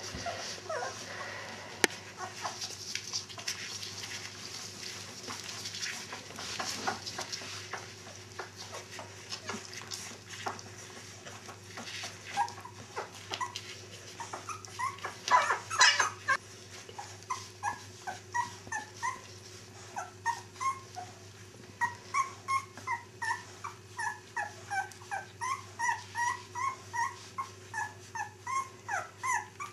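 Puppies whimpering and yipping. The first half is clicks and scuffling; past the middle come runs of short high whines, two or three a second.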